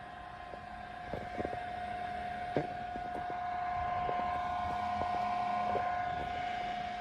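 Small battery-powered desk fan running: a steady high motor whine over a rush of air, growing slowly louder, with a few light clicks in the first few seconds.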